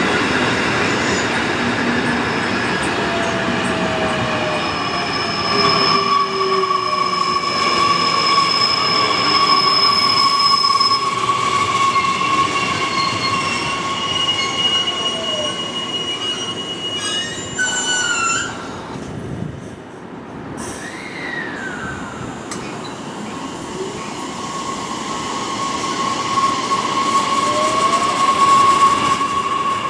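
JR Kyushu 811/813 series electric multiple-unit train running past at close range: steady wheel-on-rail rumble with high, steady squealing tones and a few motor whines that glide in pitch. The sound dips briefly about two-thirds through, then builds again as cars keep passing.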